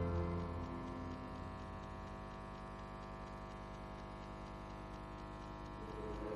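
Steady electrical hum made of many held tones. A louder held sound dies away in the first half second, and a new sound swells near the end.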